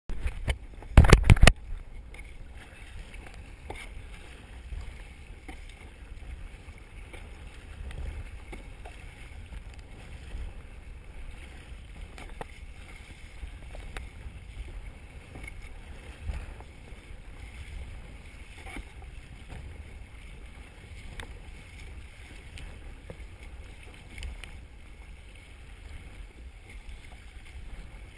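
Wind rumbling on the microphone and choppy water splashing against a sit-on-top kayak as it is paddled, with faint scattered ticks. A loud knock about a second in.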